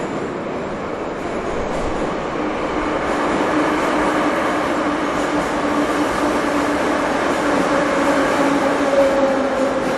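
Moscow metro train running, a loud rushing rumble with a low whine that grows stronger and dips slightly in pitch near the end.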